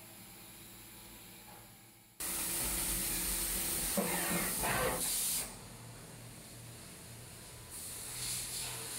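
Flood coolant hissing from the nozzles of a CNC milling center onto the aluminum part as it is milled. After a low steady machine hum, the hiss starts abruptly and loud about two seconds in. It drops back about five seconds in and swells again near the end.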